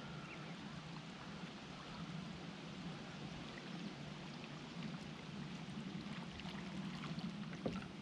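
Water lapping and gurgling against a moving kayak's hull, over a steady low drone, with a short knock near the end.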